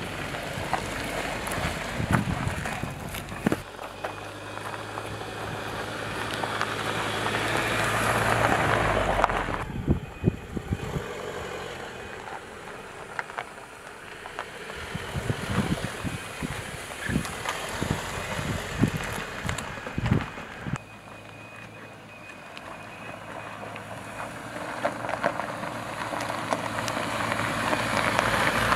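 A 2019 Jeep Cherokee Trailhawk driving over a dirt and rock trail: the engine runs under a hiss of tyres on gravel, with scattered short thumps as the wheels go over rocks. The noise swells twice as the SUV passes close, dropping off suddenly after the first pass.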